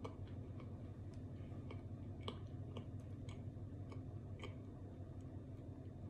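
Chewing of hard, solid chunks of microwaved white powder, with irregular sharp crunches and crackles about three times a second over a low steady hum.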